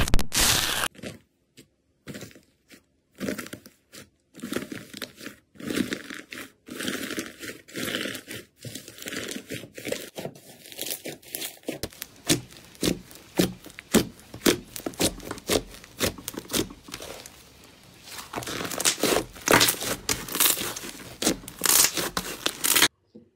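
Hands squeezing, poking and stretching a thick green slime, giving irregular crackling, popping and small tearing sounds that grow denser toward the end and cut off suddenly. It opens with a second of louder crackling from foamy, bubbly slime pressed with a metal tool.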